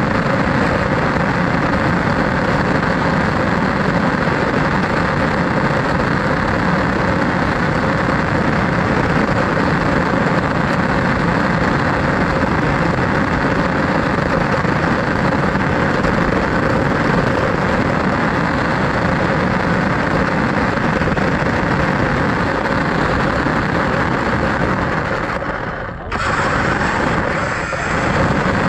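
Radio-controlled car driving, its motor and wheels making a loud steady noise with a constant hum; the sound drops out briefly near the end, then resumes.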